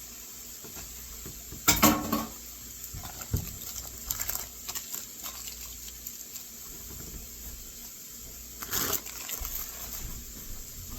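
Pot of green beans with bacon cooking on the stove with a steady faint hiss, and two loud clatters against the pot about two seconds in and again near nine seconds, with a few lighter knocks between.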